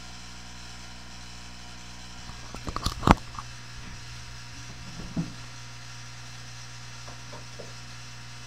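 A quick run of knocks and rattles about two and a half seconds in, ending in one sharp bang, then a softer thump a couple of seconds later and a few faint taps, as a person moves about and bumps against furniture, over a steady electrical hum.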